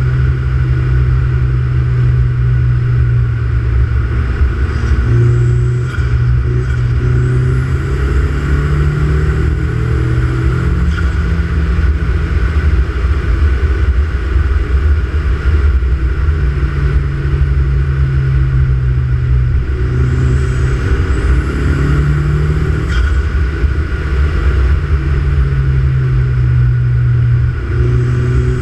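BMW 1M's twin-turbo straight-six with an open Pipercross intake, running and revved in two bursts, a rising turbo whistle building in each. Each burst ends with a short sharp release from the Bailey DV30 diverter valve as the throttle closes.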